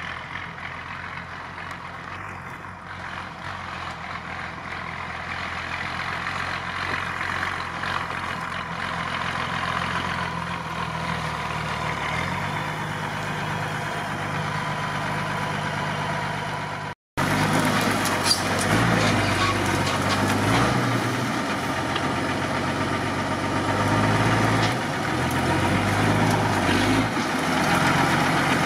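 Mercedes-Benz Unimog's diesel engine running as the truck drives over rough off-road ground, growing louder as it approaches. It cuts out for a moment about two thirds of the way through, then comes back louder and closer, with the engine note rising and falling.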